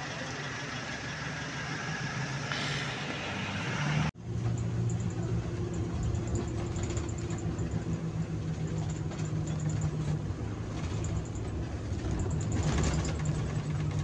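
Bus engine running steadily with a low hum; a brief cut about four seconds in, after which the engine is heard from the driver's cab while the bus drives along the road.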